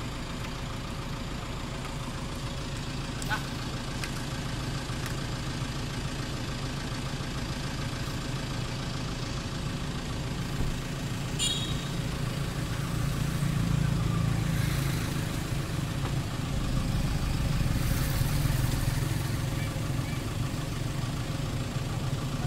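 An SUV's engine running with a steady low hum that grows louder in the second half, with a few short clicks.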